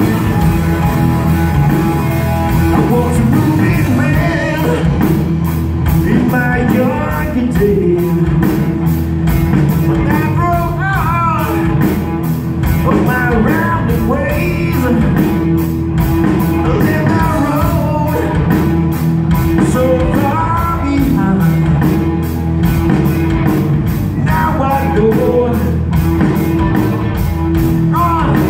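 Live rock band playing: electric guitars, bass guitar and drum kit, with a voice singing over it from about four seconds in.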